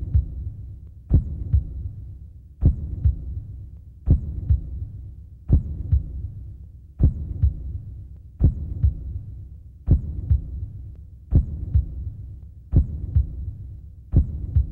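Heartbeat sound effect: slow, deep lub-dub double thumps, a strong beat then a weaker one, repeating about every second and a half with a low rumble trailing each pair.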